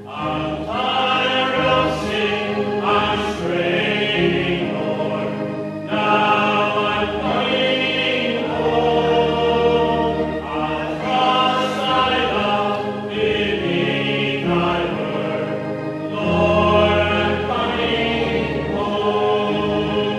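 Congregation singing a hymn together, in sustained notes with a steady flow of phrases.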